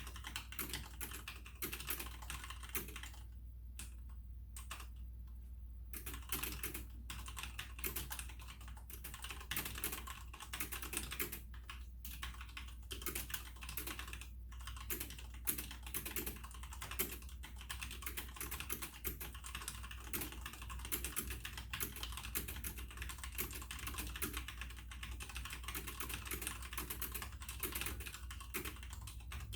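Fast continuous typing on a Logitech G610 mechanical keyboard with Cherry MX Red linear switches: a rapid run of key strokes, thinning briefly about three to six seconds in.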